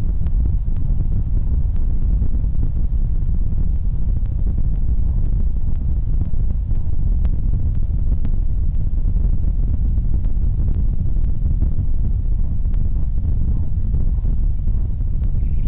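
Wind buffeting an outdoor nest-cam microphone: a steady low rumble with faint, scattered ticks.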